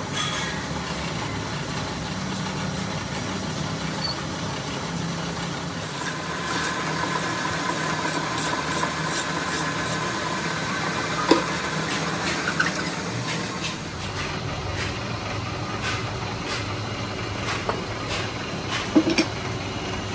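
A motor running steadily with a low hum; a higher steady whine comes in for several seconds in the middle, and a few sharp knocks sound, loudest once about eleven seconds in and a couple near the end.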